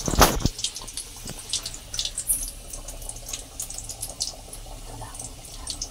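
Potato-and-dough rolls deep-frying in hot oil in a kadhai, sizzling with frequent sharp crackles. One brief loud knock comes right at the start.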